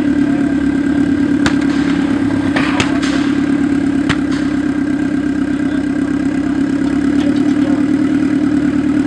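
Off-road buggy's engine running at a steady idle, with a few short sharp clicks about a second and a half, three and four seconds in.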